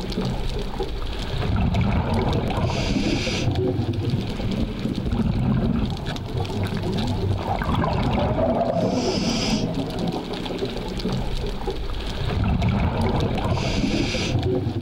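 A scuba diver breathing through a regulator underwater: a short hiss on each inhale, three times, with bubbling exhaust bubbles between the breaths.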